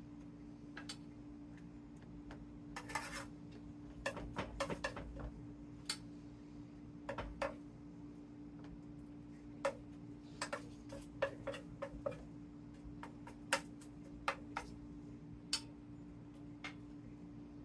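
Irregular light clicks and taps of a spoon against a baking dish as egg-and-cheese filling is spread over phyllo, heard over a steady low hum.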